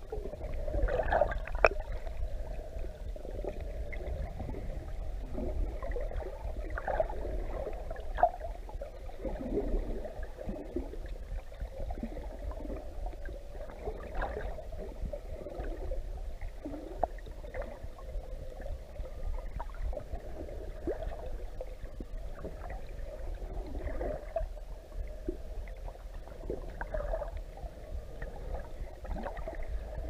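Muffled underwater ambience picked up by a camera underwater: a steady low rumble with scattered faint clicks and swishes.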